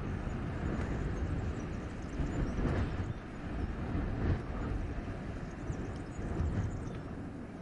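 Winter wind blowing through a forest in gusts: a low, rushing rumble that swells and eases every second or two.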